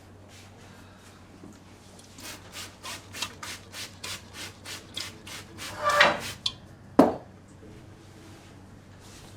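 Hands rubbing and working a customer's hair and scalp in an Indian barber's head massage: a run of even rubbing strokes, about three a second, then two louder snaps of hair cracking about a second apart.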